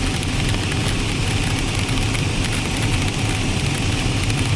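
Steady rushing airflow noise inside a glider's cockpit in flight, even and unbroken.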